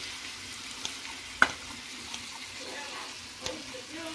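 Food sizzling in a frying pan while it is stirred with a utensil, with a sharp clink of the utensil on the pan about a second and a half in and a softer one near three and a half seconds.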